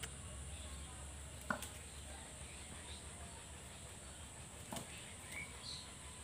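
Quiet outdoor background with a steady high hiss, two sharp clicks (the louder about a second and a half in), and a few short, faint bird chirps near the end.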